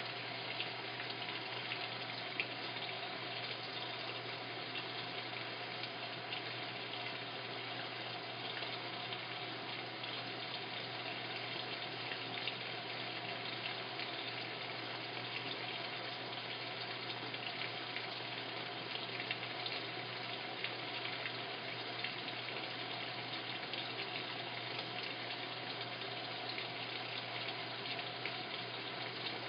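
Washing machine filling with water: a steady rush of water flowing into the drum, with a constant low hum underneath.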